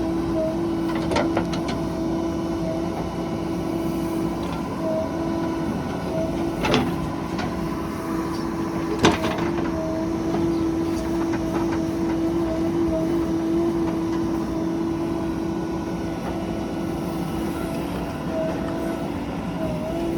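Diesel engine running steadily, with a couple of sharp metal clanks, one about seven seconds in and a louder one about nine seconds in.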